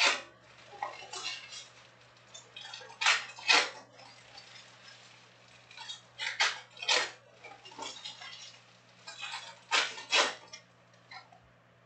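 Foil trading-card pack wrappers being ripped open by hand with sharp crinkling tears, a quick double rip about every three seconds, four times.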